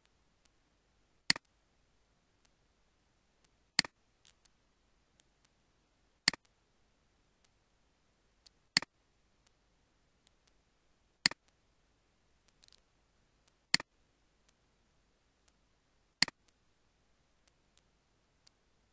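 Sharp double clicks repeating at an even pace, about one every two and a half seconds, seven times, with fainter ticks in between.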